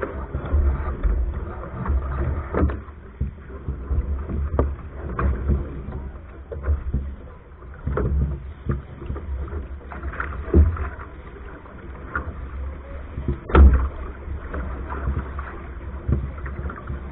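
A Soling keelboat sailing under way: steady wind buffeting the deck-mounted microphone and water rushing along the hull. Scattered knocks and clatter of deck gear and lines come through as the spinnaker is hoisted, the loudest a sharp knock about thirteen and a half seconds in.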